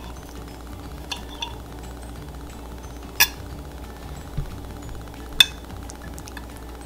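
Metal knife and fork clinking against a ceramic plate while cutting food: a few sharp clinks, faint ones about a second in and two louder ones about three and five seconds in.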